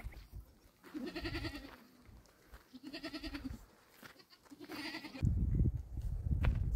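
Livestock bleating three times, each call a wavering cry about a second long. A little after five seconds in, a loud low rumble takes over.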